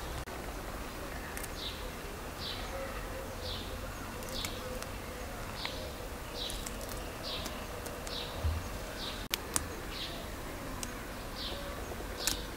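Outdoor ambience: a short, high chirp repeating about once a second, over a faint buzzing like a flying insect.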